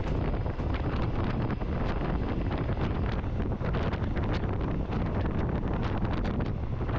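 Passenger train running along the track, heard from aboard: a steady rumble with wind buffeting the microphone and frequent light clicks from the wheels and rails.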